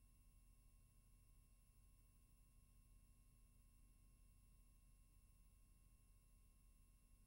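Near silence: only a faint steady hum and hiss, with no other sound.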